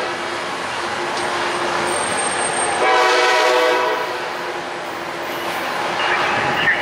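Tri-Rail commuter train's horn sounding one chord-like blast of about a second, roughly three seconds in, over the steady hum and rumble of the train moving out along the station track.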